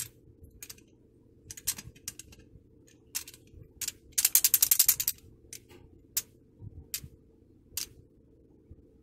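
The metal piano-key levers of a National SS-9000 3-in-1's cassette deck keyboard clicking as they are flicked up and down by hand; freshly cleaned, the keys move loosely. Scattered single clicks and small clusters, with a quick run of clacks about four seconds in.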